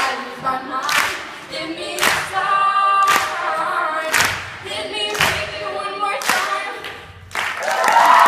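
A cappella vocal group singing in close harmony, with a sharp percussive hit about once a second. Near the end the voices swell into a loud held final chord.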